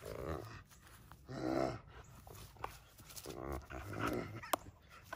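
Young Rottweiler growling in short bouts while tugging on a bite tug, loudest about a second and a half in. A sharp click comes about four and a half seconds in.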